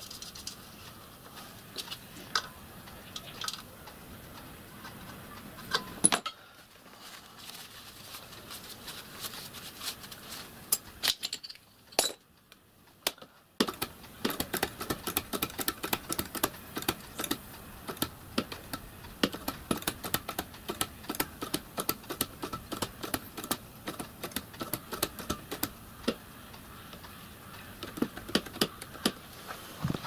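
Hand-operated boiler test pump being worked, with a dense run of metallic clicking and rattling from its handle and valves. Before that there are scattered small metallic clicks as pipe fittings are handled.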